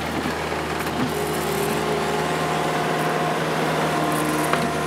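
Ammann tandem asphalt roller's diesel engine running steadily, a constant hum with no change in pitch.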